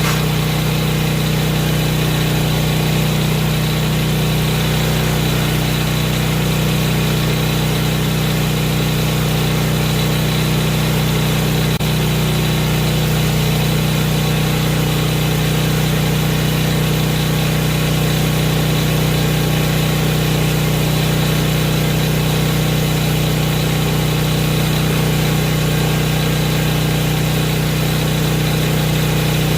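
Harbor Freight electric angle grinder running steadily at full speed with an even hum, not biting into metal.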